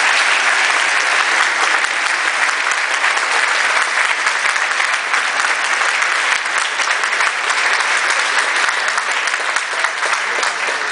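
Large audience applauding steadily, a dense clatter of many hands clapping at once.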